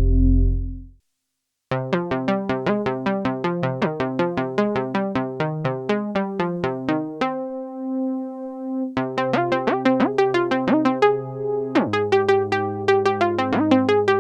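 Roland Juno-106 analog polysynth playing patches. A low held chord fades out in the first second, then after a short gap comes a fast run of short plucky notes with pitch glides. A held note sits about halfway through, then the run resumes over a low bass note.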